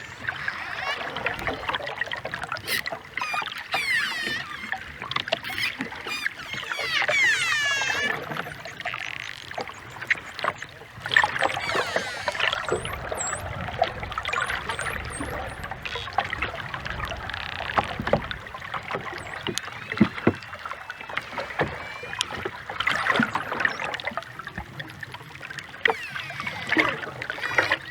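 Dolphins calling: rising and falling whistles mixed with rapid click trains and buzzing pulsed calls, with a cluster of short, high, quick whistles about halfway through.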